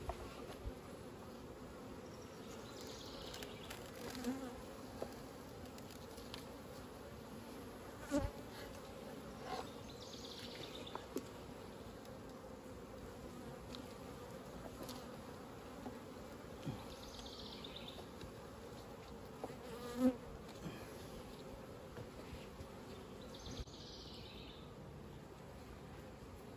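Honey bees buzzing steadily over the open hive's frames, a low, even hum, with a few light knocks, the loudest about twenty seconds in.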